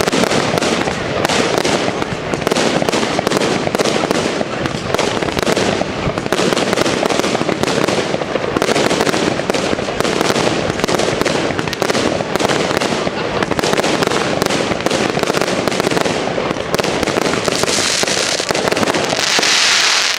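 Consumer fireworks going off in a rapid, continuous barrage of bangs as aerial bursts explode overhead. Near the end a bright hissing crackle rises over the bangs.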